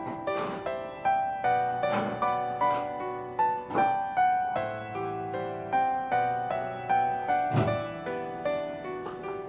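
Background music: soft piano playing a slow, gentle melody over sustained chords.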